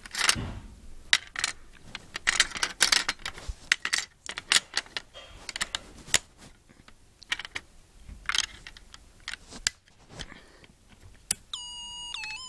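Irregular clicks, taps and rustling from a Snap Circuits board and a phone being handled right against the microphone. About a second before the end, the Snap Circuits music IC starts playing an electronic beeping melody through the kit's speaker, steady tones stepping in pitch.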